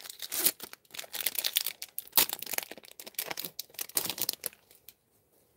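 Foil trading-card booster pack being torn open and crinkled by hand, a dense irregular crackling that stops near the end.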